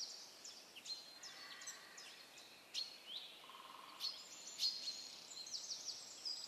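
Small birds chirping faintly, a scatter of short, quick chirps throughout.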